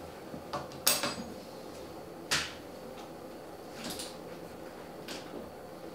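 A few sharp clinks and knocks of small hard objects, like dishes or metal on a hard surface: a loud one about a second in, another about two and a half seconds in, and fainter ones later, over a faint steady hum.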